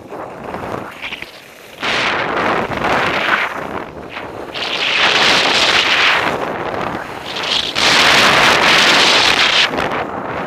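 Wind rushing over an action camera's microphone as a skier runs downhill, mixed with skis hissing and scraping over the snow. It swells louder twice in the second half.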